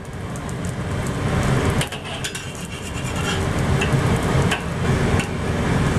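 Metal spatula scraping and clinking against a wok while a zucchini pancake fries in oil, with a few sharp clicks over a steady low rumble.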